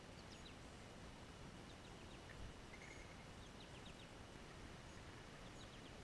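Faint high chirps of a small songbird, in quick runs of two to four short falling notes every second or two, over steady low background noise.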